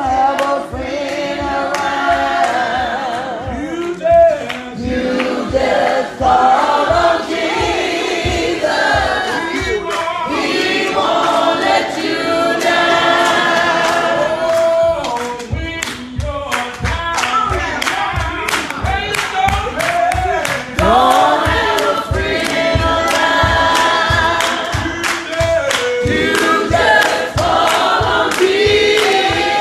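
Gospel song sung by several voices together, with steady hand-clapping on the beat, about two claps a second.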